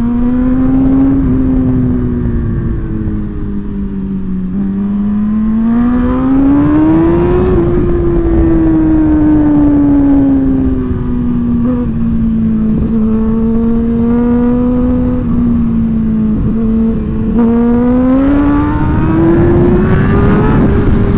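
Suzuki GSX-R sport bike's inline-four engine running hard on the road, its pitch climbing in the first seven seconds, easing off slowly, then climbing again near the end, with a steady rush of wind and road noise underneath.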